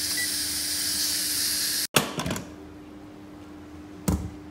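Steady hiss of steam venting from an electric pressure cooker's opened pressure valve, cut off abruptly about two seconds in. After it come a few clicks and a sharp knock near the end.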